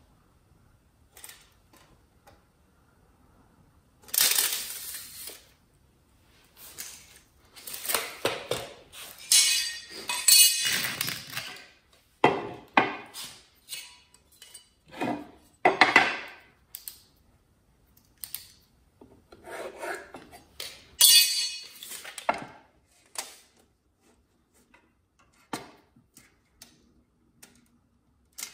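Hand work with wooden boards and a steel tape measure: a string of separate rattles, scrapes and knocks as the boards are handled and fitted and the tape is pulled out and let back.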